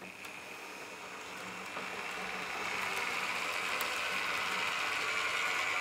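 Piko N-scale BR 442 Talent 2 model train, five cars, running along the track with the steady whir of its motor and wheels. The whir grows louder over the first few seconds as the train comes close, then holds.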